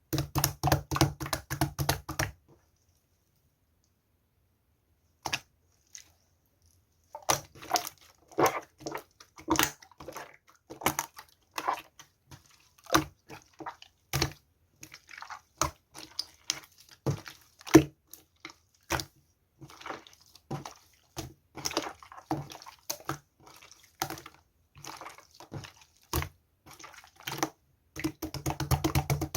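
Slime being squished and pressed by hand, giving quick runs of wet clicks and pops. The clicking stops for a few seconds soon after the start, then carries on.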